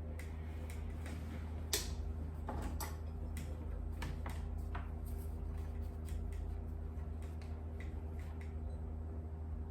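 Light, irregular clicks and taps of small hand tools, such as tweezers, handling thin wire on a workbench, about a dozen in all, over a steady low electrical hum.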